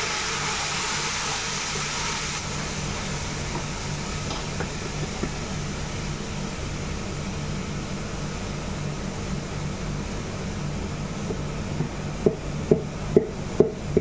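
Soaked, wet rice poured into hot oil in a stainless steel pot, sizzling, strongest in the first couple of seconds and then settling to a steady hiss over a low hum. Near the end come about four sharp knocks as the bowl is tapped against the pot to empty it.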